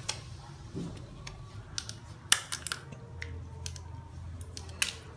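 Crab claw shells cracking and snapping as they are broken open for eating: a string of sharp, irregular cracks, several close together in the middle, over a low steady hum.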